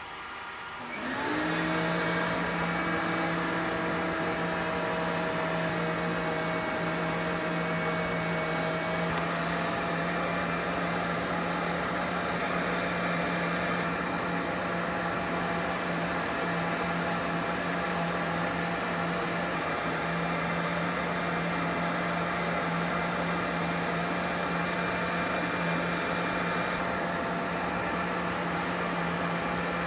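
Wood lathe motor spinning up about a second in, its pitch rising and then settling, then running steadily with an even hum.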